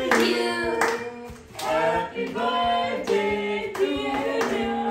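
Voices singing a birthday song, with hands clapping along.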